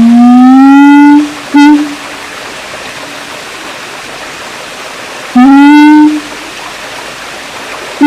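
Siamang calling: three loud, pitched hoots, the first rising and about a second long, a short one just after it, and another rising one about five seconds in. A steady hiss fills the gaps.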